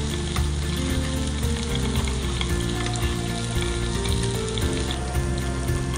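Meat and mushrooms sizzling on a hot Korean barbecue grill plate, with a metal spoon stirring egg in the egg ring around its rim, over background music.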